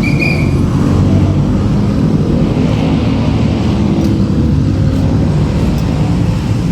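Steady low rumble of a running vehicle engine, with a brief high-pitched tone right at the start.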